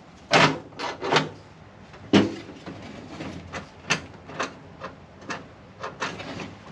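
Hand pop-rivet gun being squeezed, a dozen or so sharp, irregular clicks and knocks as it works a rivet to fasten a door lock actuator inside a car door.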